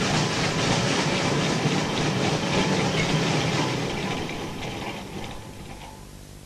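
Steam ploughing engine working, a loud dense mechanical noise that dies away about four to six seconds in, leaving a low steady hum.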